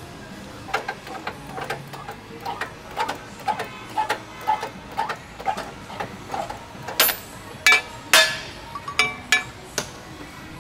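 Hydraulic shop press working a lower control arm bushing, with a steady run of clicks about two a second. Then several loud metallic clanks, a couple of them ringing, as the steel press sleeves and the arm are moved.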